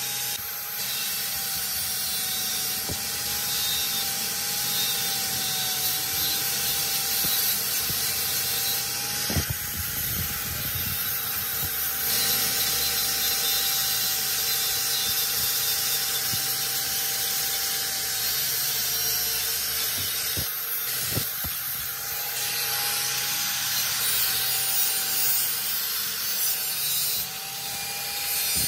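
Electric angle grinder with a thin cutting disc running at speed and grinding steel: a steady high motor whine that wavers slightly in pitch, under a harsh hissing scrape of the disc on the metal, with a few sharp clicks.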